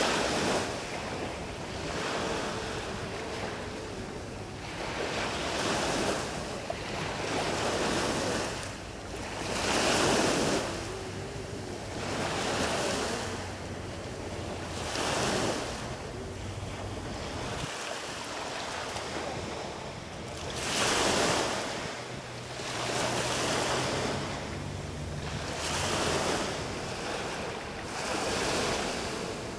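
Small sea waves breaking and washing up a sandy beach, the surf swelling about every five seconds.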